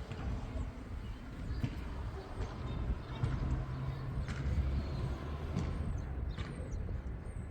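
Outdoor background noise: a steady low rumble with scattered light knocks and a few short high falling chirps; the sirens are not sounding.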